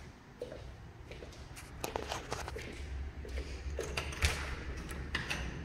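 Footsteps on a hard laminate floor with scattered clicks and knocks, over a low rumble that builds from about two seconds in.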